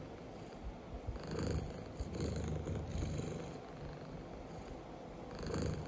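Pet cat purring steadily, the low purr swelling and easing in slow waves.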